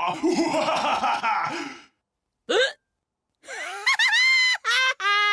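A boy's single short hiccup about halfway through, quick and rising in pitch. Before it a shouting voice trails off, and near the end a voice starts holding sung notes.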